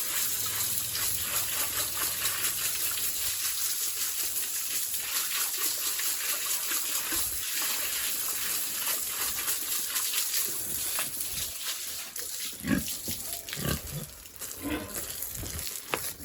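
Pigs grunting over a steady hiss of water spray as the pen and pigs are hosed down. The spray eases about eleven seconds in, leaving a few short, separate low grunts.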